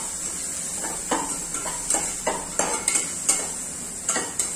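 Steel spatula scraping and knocking against an aluminium pressure cooker while a thick spice masala is stirred, in short irregular strokes over a steady high hiss.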